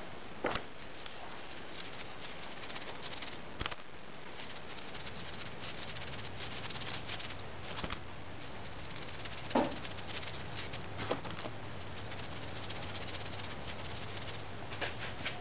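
Facing sand mixed with sawdust being shaken through a mesh sieve onto patterns in a moulding flask: a soft, steady hiss of falling sand, with a few light knocks scattered through.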